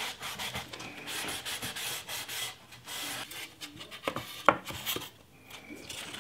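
A rag rubbing over a wooden cabinet-door frame, wiping on finish, a steady scratchy swishing. Around two thirds of the way through come a few light knocks of wooden boards being set into the frame.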